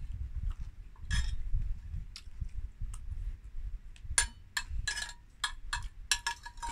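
A metal spoon clinking and scraping against a plate as food is scooped up. There is a single clink about a second in, then a quick run of about ten clinks in the last few seconds.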